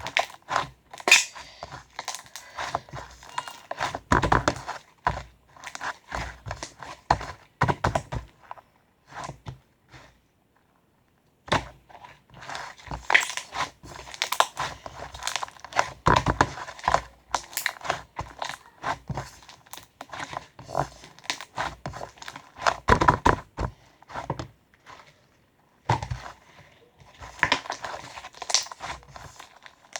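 Irregular knocks, thunks and crinkling rustles, close and dense, that break off briefly about ten seconds in.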